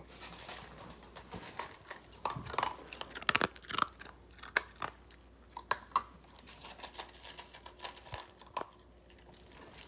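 Husky puppy eating dry kibble from a metal bowl: an irregular run of crunches and clicks, loudest a few seconds in.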